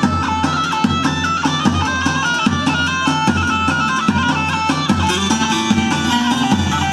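Kurdish wedding dance music: a reedy, bagpipe-like melody over a steady drum beat and bass line.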